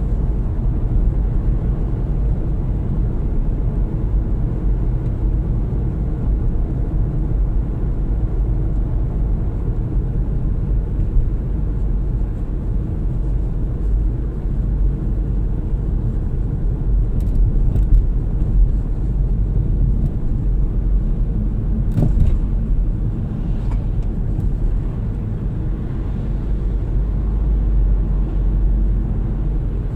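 Steady low road and engine rumble heard from inside a moving car, with a few brief clicks a little past halfway.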